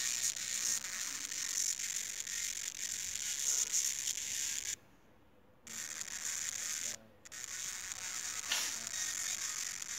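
A song played through a piezoelectric disc driven by an LM324 amplifier as a makeshift bone-conduction earphone: thin, tinny and gritty, almost all treble with hardly any bass, in mono. The sound cuts out for nearly a second about five seconds in and briefly again around seven seconds.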